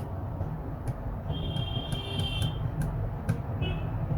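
High-pitched electronic beeps from bench test equipment: one long beep of about a second, then a short beep near the end. A steady low hum and faint regular clicks run underneath.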